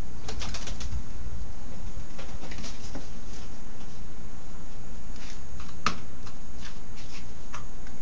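Feral pigeon flapping its wings as it is caught by hand inside a wooden carrier, with scattered short knocks and rustles against the box, over a steady low rumble.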